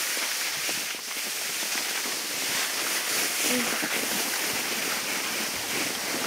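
Skis hissing and scraping over packed snow during a run, mixed with wind rushing over a helmet-mounted GoPro's microphone; a steady noisy rush.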